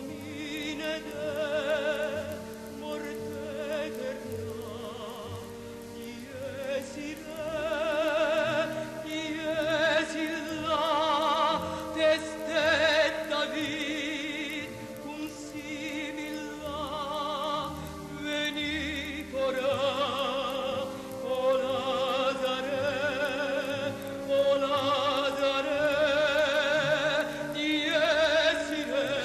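Classical music: a solo voice singing in an operatic style with wide vibrato over sustained accompaniment.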